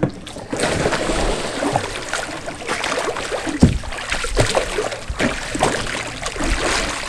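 Pool water sloshing and splashing as a plastic sea kayak is capsized and rolled, with a wooden Greenland paddle sweeping across the surface. There are several sharp splashes, the loudest about three and a half seconds in.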